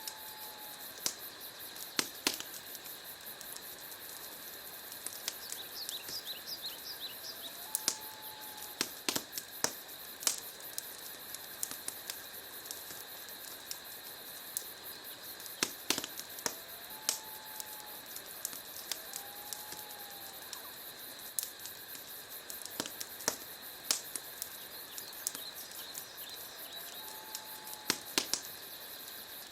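Wood fire crackling: irregular sharp pops and snaps over a steady hiss. A faint short whistle-like tone recurs every eight to ten seconds alongside a steady high chirring.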